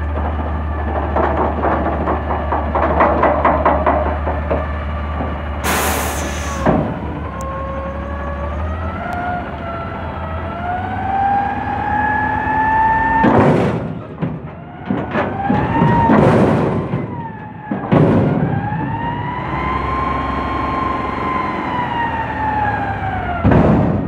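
Front-loader garbage truck working a dumpster: a diesel engine hum under a hydraulic whine that climbs slowly in pitch, then rises and falls in an arch as the fork arms lift and lower the container. Several loud metal bangs come from the container and arms being shaken and dropped, with a rapid rattle in the first few seconds.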